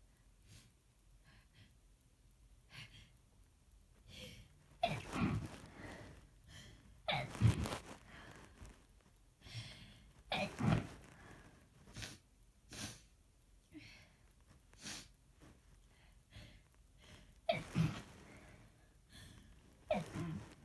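A person sneezing in a muffled, rapid fit: about eight sneezes starting about five seconds in, irregularly spaced, some in quick pairs.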